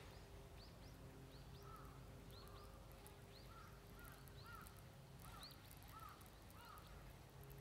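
Faint bird calls: a string of short arched chirps, about a dozen, repeated at irregular spacing over an otherwise near-silent background.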